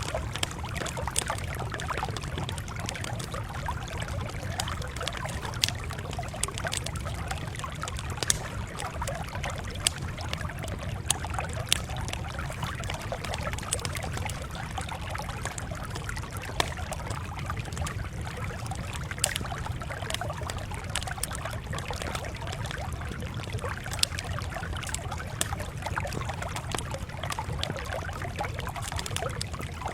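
Campfire crackling: a steady hiss of burning wood broken by frequent sharp pops, over a constant low rumble.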